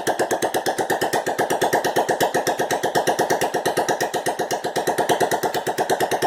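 1986 Honda Fourtrax 125's single-cylinder four-stroke engine idling with no exhaust pipe fitted, a rapid, even popping straight from the open exhaust port, on its first run after a top-end rebuild.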